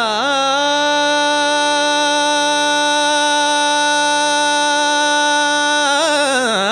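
A male voice singing Marathi natya sangeet. An ornamented phrase settles into one long, steady held note of about five seconds, and the voice starts ornamenting again near the end, over a faint low drone.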